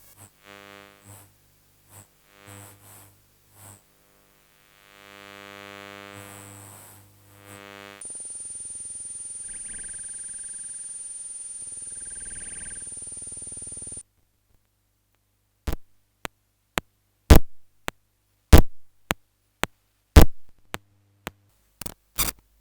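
Electronic, synthesized sounds. Short buzzy pitched notes come first, then a steady high-pitched tone for about six seconds, then a run of sharp clicks of uneven loudness.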